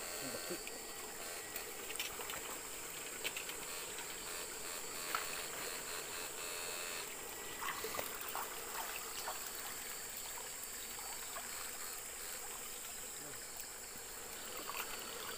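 Shallow stream water trickling, with scattered small knocks and splashes, under a steady high-pitched hiss.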